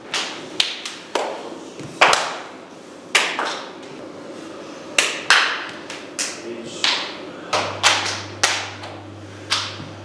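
Sharp slaps at irregular intervals, one or two a second, each with a short echo: sumo wrestlers' training slaps during morning practice in the stable's practice room.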